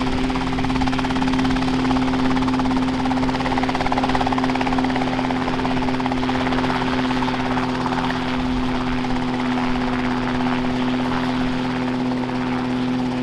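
RotorWay Exec kit helicopter hovering low and setting down: a steady engine drone with the rapid chop of the main rotor blades.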